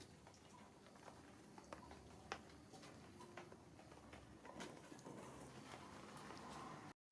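Faint background with scattered light clicks and taps, a few seconds apart, cutting off suddenly near the end.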